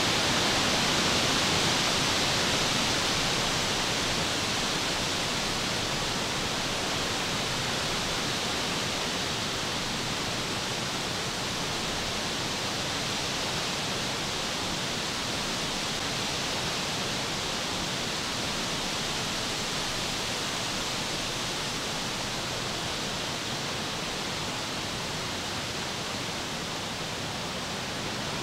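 A steady, even hiss with no distinct events, easing slightly over the first few seconds and then holding level.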